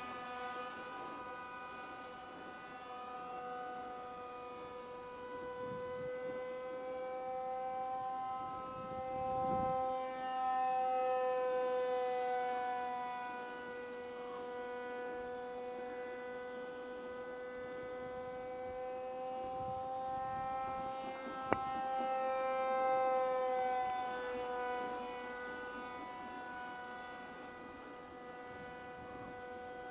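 Motor and propeller of a Multiplex Shark radio-controlled model plane whining steadily in flight, the pitch drifting slightly up and down as it flies around. A single sharp click about two-thirds of the way in.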